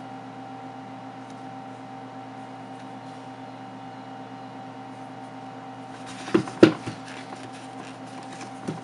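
A steady hum with several even tones from an appliance or fan. About six seconds in, the smartphone is set down on the desk with two or three knocks, followed by light rustling and clicks as a microfiber cloth starts wiping its screen protector.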